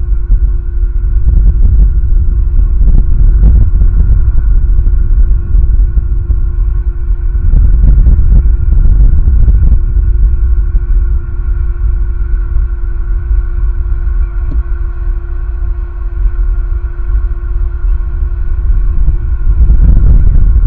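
Strong wind buffeting the nest camera's microphone: a loud, gusting low rumble that swells and eases, with a steady hum running underneath.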